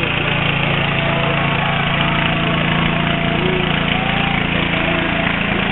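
Small engine of a homemade giant-hoop parade vehicle running steadily, with faint crowd voices behind it.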